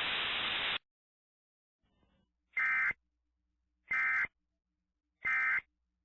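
Emergency Alert System end-of-message signal: three short bursts of buzzing digital data tones, each about a third of a second long and just over a second apart, marking the end of the alert. A soft hiss runs for the first second, before the bursts.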